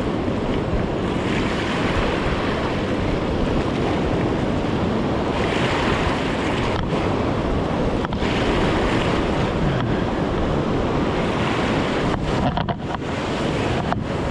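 Heavy surf from a winter groundswell breaking and washing on the shore, with wind buffeting the microphone.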